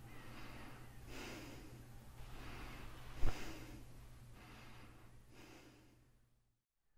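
A man breathing heavily in bed, about one breath a second, with a single thump a little past three seconds in; the sound fades out near the end.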